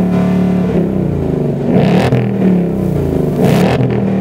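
2018 Ford Mustang GT's 5.0L Coyote V8 running with its active exhaust in track mode, revved up and back down a few times between stretches of idle.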